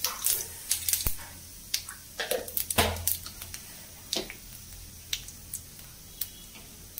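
Whole cumin seeds spluttering in hot oil: irregular sharp pops, several a second at first, thinning out to occasional pops over the last few seconds as the seeds finish cracking.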